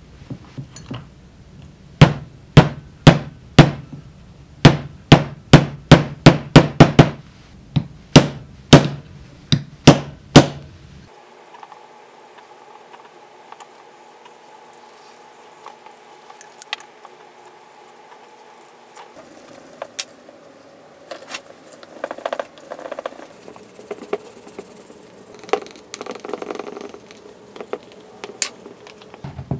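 A hammer striking about twenty times in quick succession, the blows coming closer together, then stopping. After that come only scattered light clicks and rustling of handling.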